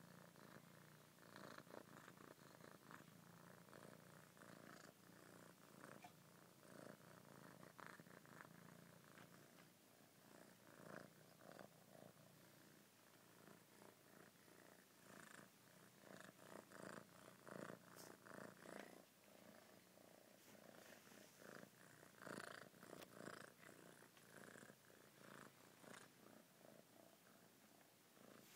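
A ginger domestic cat purring faintly and steadily.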